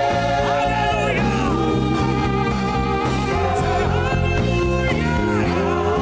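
Gospel worship music: sung vocals over a steady bass and instrumental backing.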